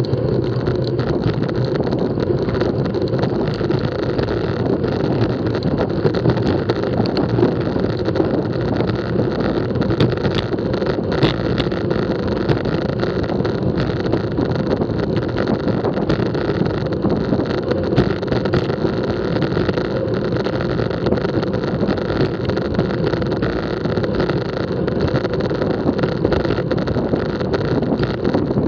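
Wind rushing over an action camera's microphone and road-bike tyres rolling on asphalt at racing speed, a steady, loud rush.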